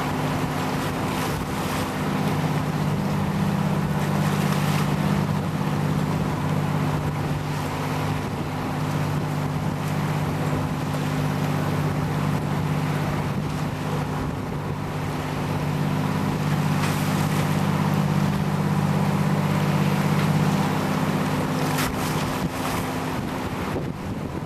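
Boat engine running at a steady speed, with water rushing along the hull and wind on the microphone.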